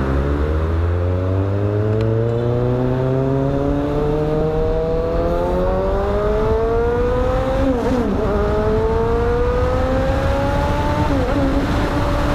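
Kawasaki Ninja 1000's inline-four engine pulling up through the revs under acceleration, its pitch rising steadily, dropping at an upshift about two-thirds of the way in and again near the end, then holding steady. Wind buffets the microphone underneath it.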